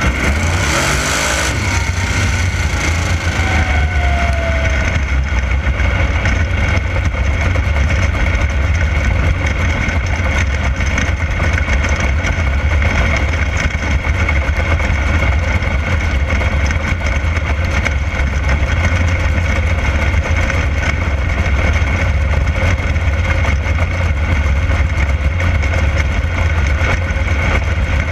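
360 sprint car's V8 engine running under race load on a dirt oval, heard from inside the open cockpit as a steady, loud drone. A brief burst of hiss comes about a second in.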